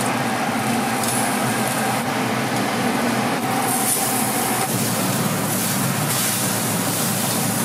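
Pork sizzling on a wire-mesh grill over a glowing burner: a steady rushing hiss that grows brighter about four seconds in and again about six seconds in as dripping fat flares up into flames.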